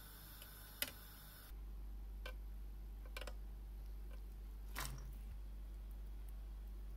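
A few separate sharp clicks and light knocks, the loudest about a second in, over a low steady hum: asparagus spears being handled and laid into a nonstick pan, tapping against it.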